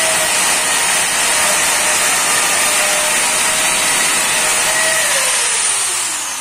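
Handheld angle grinder running against the edge of a granite strip to finish it, a steady high whine over a hiss. About five seconds in it is switched off, and its whine falls as the disc spins down.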